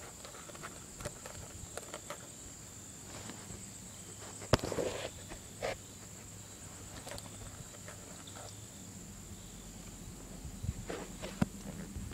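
Quiet outdoor sound: a steady high insect drone, with scattered soft steps and rustles and one sharp knock about four and a half seconds in.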